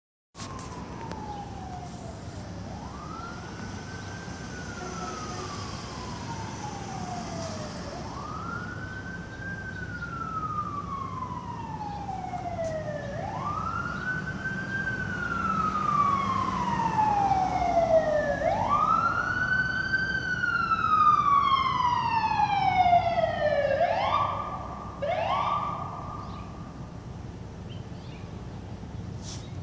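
LAFD ambulance siren on a slow wail, each rise and fall taking about five seconds and growing louder as it approaches. Near the end it gives two short rising chirps and then stops.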